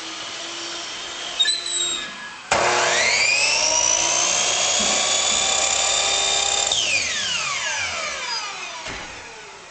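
Power miter saw switched on: the motor whines up to speed about two and a half seconds in, runs steadily for about four seconds, then is switched off and winds down with a falling whine.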